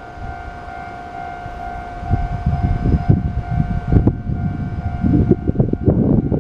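Japanese railway level-crossing alarm ringing steadily. From about two seconds in, the low rumble of a passing train, with irregular wheel knocks, joins it.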